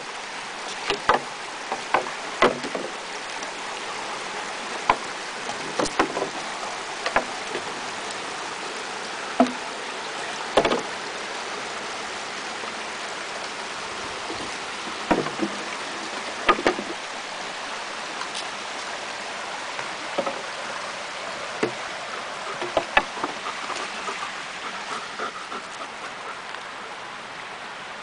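Irregular sharp wooden knocks and clacks as a dog carries a long stick across a wooden footbridge, the stick bumping the railings and planks, over a steady rushing background.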